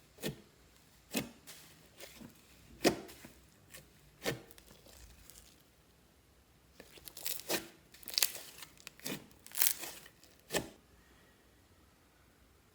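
Fluffy slime being worked and pulled apart by hand, giving irregular crackling, tearing sounds, with a busier run of them in the second half.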